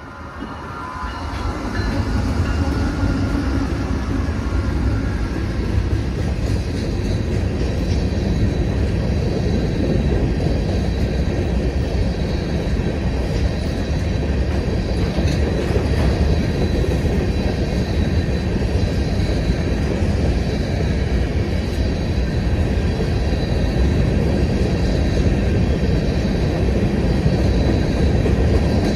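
A CSX freight train passing close by: the lead GE ET44AH diesel locomotives go past first, getting louder over the first two seconds. After them comes a long string of empty steel stone hopper cars, rolling by with a steady heavy wheel rumble and clatter on the rails, and a faint high tone above it.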